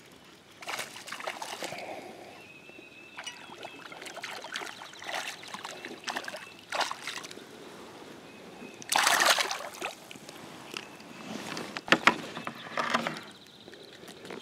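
Bursts of splashing and sloshing water as a topwater lure is drawn across the pond surface and a bass is hooked and brought in. The loudest splash comes about nine seconds in, and a few sharp clicks follow near twelve seconds.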